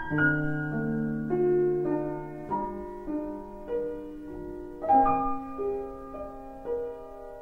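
Background music: a solo piano playing a slow, gentle line of single notes and chords, each left to ring and fade.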